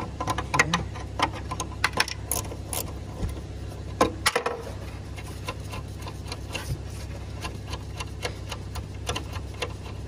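Ratcheting wrench clicking in quick, uneven runs as it loosens the nuts on a rear strut's upper mount, metal ticking on metal, over a steady low hum.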